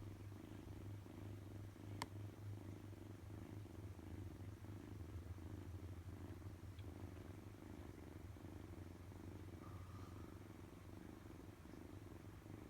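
Kitten purring steadily, with one sharp click about two seconds in.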